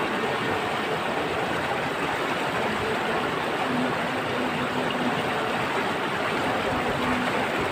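Steady rush of flowing water, like a stream, with no break or change.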